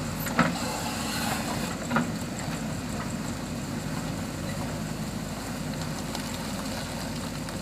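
JCB 3DX backhoe loader's diesel engine running steadily, with two sharp knocks about half a second and two seconds in.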